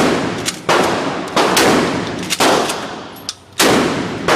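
Gunshots at a shooting range: about six loud shots at uneven intervals, each followed by a long echoing decay.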